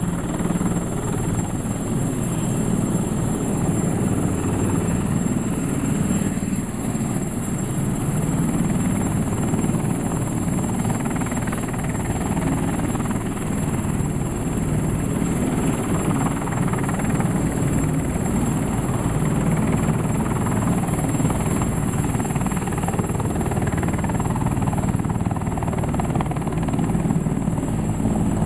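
Twin-turbine CH-53 heavy-lift helicopter hovering low and rising with an underslung sandbag load. Its rotor beats steadily at an even, loud level throughout.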